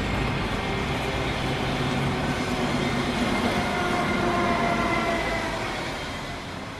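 City background noise, a steady rumble and hiss with faint humming tones like passing rail or road traffic, fading out gradually over the last few seconds.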